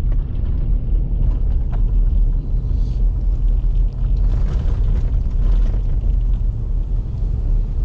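A car driving on a gravel road: a steady, heavy low rumble of the tyres and body over the dirt surface, with a few light ticks from loose stones.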